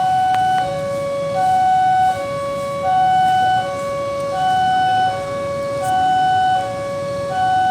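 Railway level-crossing warning alarm sounding a two-tone electronic signal, a higher and a lower tone alternating, each held about three-quarters of a second, the higher one louder: the crossing is warning of an approaching train.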